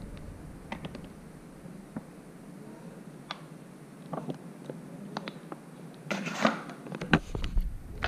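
Scattered light clicks and plastic handling noises from a bottle of liquid detergent being moved over an open washing-machine detergent drawer, with a busier patch of clicking and rustling about six seconds in.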